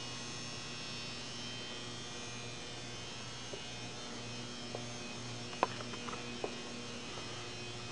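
Steady electrical hum with a thin high whine over it. A few light clicks in the second half, one sharper click a little past halfway.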